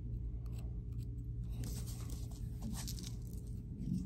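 Scattered light scratches and sharp little ticks of an X-Acto craft knife scraping through paint into a clay bowl, mixed with the bowl being handled, over a low steady hum.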